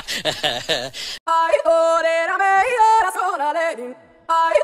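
A solo singing voice, yodel-like, holding long notes that slide up and down, starting about a second in and breaking off briefly near the end. Before it, about a second of rough, rapidly pulsing sound.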